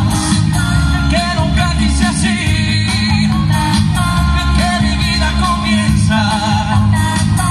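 Live pop music through a PA system: singers with wavering, vibrato-rich voices over a steady, bass-heavy amplified accompaniment.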